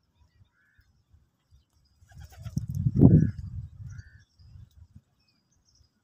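A low rumbling noise swelling and fading over about two seconds, loudest about three seconds in, with a few short chirps from small birds.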